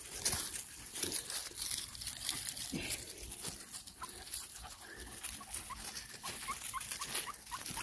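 Footsteps crunching through dry grass and leaves, with short high-pitched yips from beagle puppies, about three a second, in the second half.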